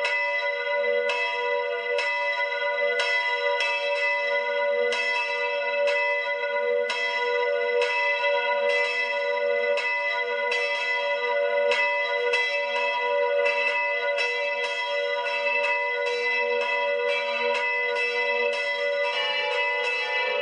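Church bells ringing: several bells of different pitch striking in an uneven, overlapping peal, about one to two strikes a second, each tone ringing on under the next.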